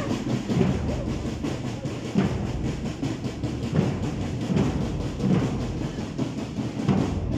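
Marching-band drums beating a steady parade cadence, with a heavy beat a little more than once a second and a continuous rattle between the beats.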